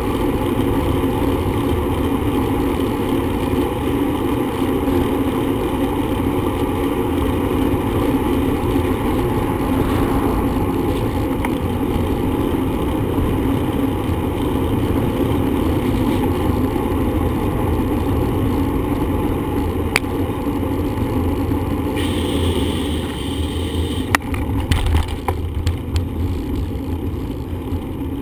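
Steady rushing wind and road noise from riding a bicycle, with a few short sharp clicks or knocks near the end.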